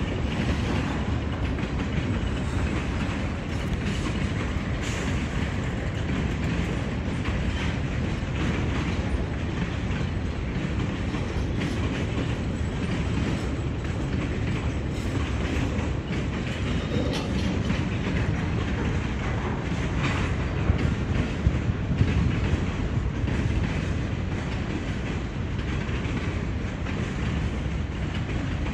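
Freight train's boxcars and flatcars rolling past: a steady rumble of steel wheels on rail with clickety-clack over the rail joints, and a few louder knocks about three-quarters of the way through.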